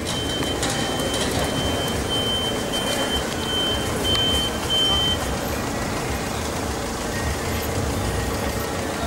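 A Lisbon Remodelado tram running slowly past on street track, a steady low rumble of the car and its wheels on the rails, with a couple of louder knocks about four and five seconds in. Over it a short, high electronic beep repeats about twice a second and stops about five seconds in.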